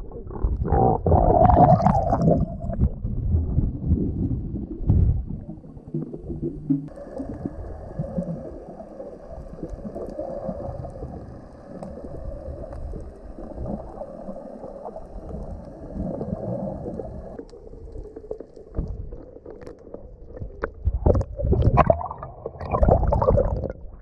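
Muffled underwater sloshing and gurgling of water against a waterproof camera housing as it dips below the surface and comes back up, loudest near the start and near the end. A steady hum comes in for about ten seconds in the middle while the camera is held underwater.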